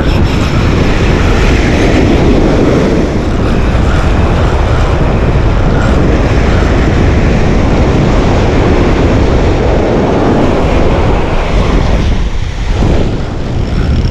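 Loud, steady wind noise buffeting the microphone over breaking ocean surf: a deep rumble with a hiss on top, easing briefly near the end.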